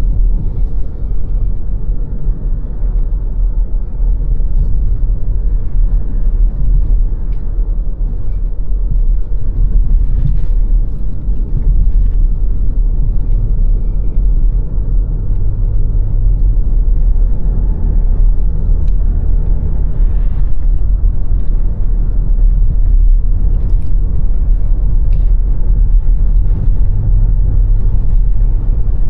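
Car driving along a road at a steady pace: a continuous low rumble of engine and road noise.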